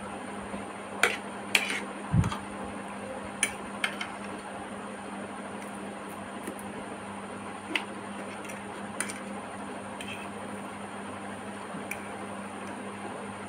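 A metal fork clinking and scraping against a plate while picking up noodles: a few sharp clicks in the first four seconds, one with a duller knock, and a couple more later, over a steady background hum.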